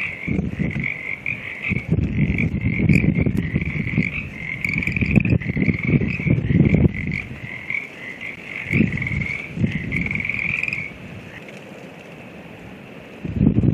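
Wind gusts buffeting the microphone in loud, irregular low rumbles, easing off after about ten seconds and picking up again near the end. Behind them, frogs call in a rapid trilling chorus that stops about eleven seconds in.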